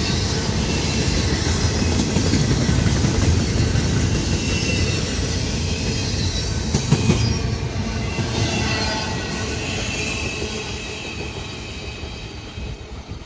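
Norfolk Southern double-stack container freight train's cars rolling past: a steady rumble of steel wheels on rail with faint high wheel squeal, and a sharp knock about seven seconds in. The sound fades over the last few seconds as the end of the train pulls away.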